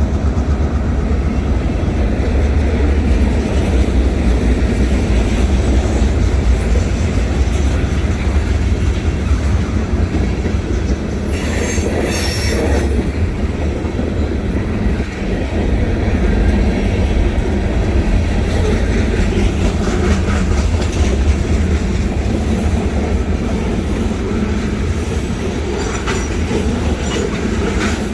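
Freight train rolling past: a steady low rumble of cars on the rails, with wheels squealing in a high screech about eleven seconds in and more faintly a few times later.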